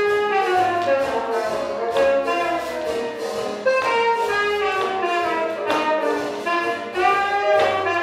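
Swing jazz music with horns playing melodic lines over a bass line.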